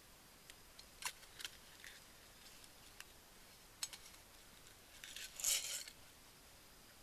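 Handling noise: scattered light clicks and rustles, with a louder rustling clatter about five and a half seconds in.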